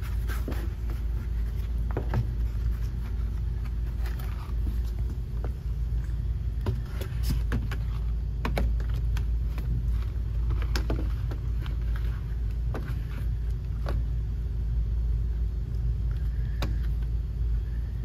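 Steady low rumble of running machinery, with the scrapes, taps and knocks of pleated air filters being handled and slid into a metal filter rack.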